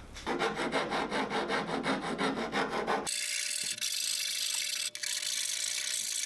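Hand file scraping back and forth along the freshly cut edge of a square hole in a panel, deburring it, in quick repeated strokes. About three seconds in, the sound changes abruptly to a steady hiss with a faint steady tone.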